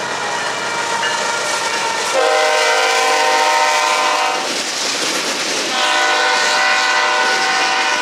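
A passing BNSF intermodal train's lead locomotive sounds its air horn in two long, steady blasts with a short gap between. Under the horn runs the rumble and wheel clatter of the locomotives and double-stack container cars going by.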